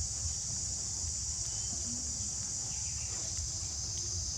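Steady high-pitched trilling of an insect chorus that runs without a break, over a low rumble.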